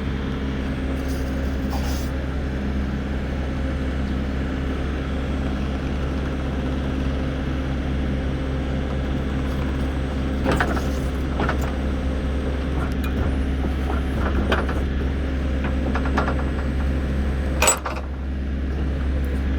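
Steady low machine hum with several constant low tones, broken by a few sharp clicks or knocks about halfway through and near the end.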